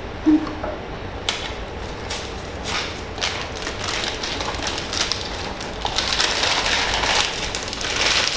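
Blind-box toy packaging and small vinyl figures being handled: a run of small taps and clicks, with rustling that grows busier in the second half.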